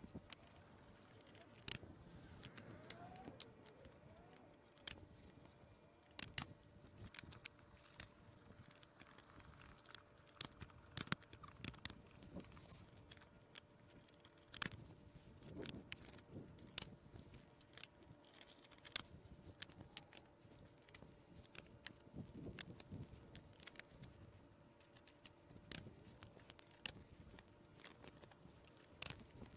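Scattered light clicks and knocks at an irregular pace, as composite garden-bed boards and plastic snap-lock brackets are handled, stacked and fitted together.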